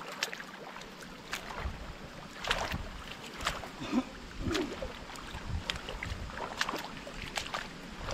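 River water sloshing around wading legs, with scattered small splashes as a nylon gill net is paid out into the shallow river.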